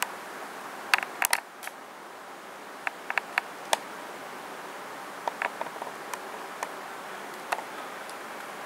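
Handling noise from a handheld camcorder: irregular sharp clicks and taps in loose clusters, over a steady hiss.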